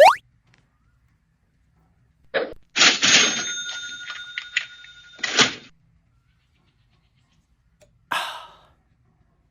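Short edited sound effects: a quick rising whistle at the start, then a bell-like ringing from about two to five and a half seconds, and a brief noisy burst near the end.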